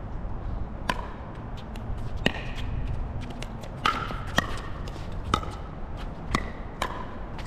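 A pickleball rally: about seven sharp, hollow pops from paddles striking the plastic ball and the ball bouncing on the court, irregularly spaced. Low wind rumble on the microphone runs underneath.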